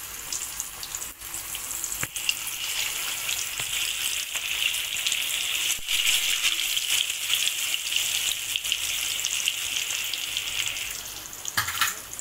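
Spice-marinated fish pieces deep-frying in hot oil in a kadai: a steady sizzle with scattered crackles, growing louder about two seconds in as more pieces go into the oil. A short knock near the end.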